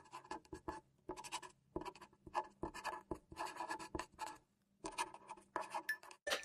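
Pen writing in cursive on a sheet of paper: faint, quick scratching strokes in short runs, with brief pauses where the pen lifts between words.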